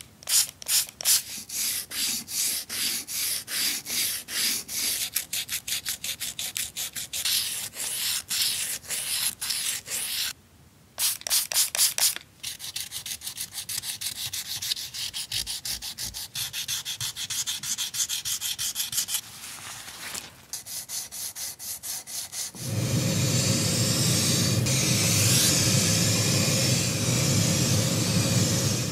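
A brush scrubbing a metal ashtray through foam, in quick rhythmic back-and-forth strokes, about two to three a second, with two brief pauses. About 23 seconds in, this gives way to a steady hiss of compressed-air spraying onto the ashtray.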